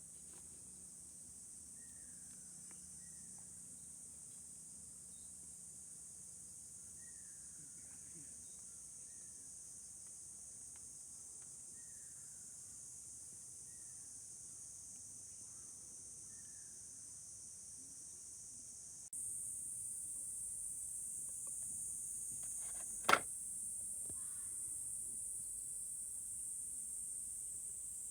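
Steady high-pitched insect chorus, which gets suddenly louder about two-thirds of the way through. A single sharp knock stands out shortly after.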